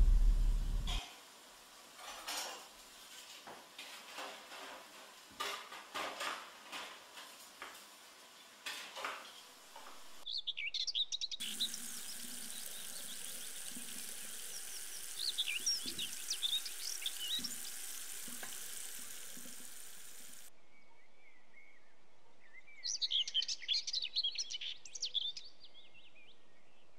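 A washbasin tap is opened and water runs into the basin as an even hiss for about nine seconds before it cuts off suddenly. Birds chirp over the running water and again near the end, and soft clicks and rustles come before the water starts.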